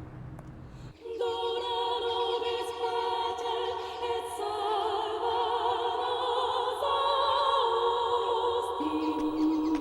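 Choral soundtrack music: several high voices hold long notes with vibrato, entering about a second in after a quiet low hum.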